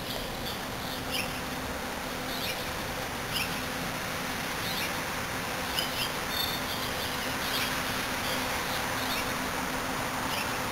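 Small birds giving short, high chirps at irregular intervals, over a steady low hum and general outdoor background noise.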